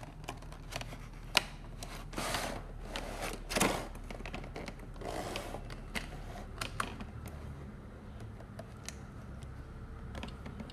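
Cardboard box and clear plastic blister tray being handled: scattered clicks and a few short crinkling rustles as the tray is slid out of the box.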